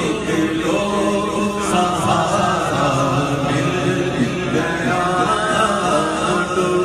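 A male naat reciter singing a naat live into a microphone, in long, wavering, ornamented sung phrases.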